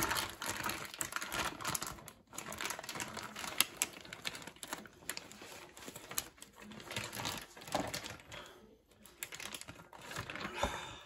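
Plastic vacuum-seal bag crinkling and kitchen tongs clicking as a cooked pork fillet is pulled out of the bag; a dense run of irregular clicks and rustles that dies down about eight and a half seconds in.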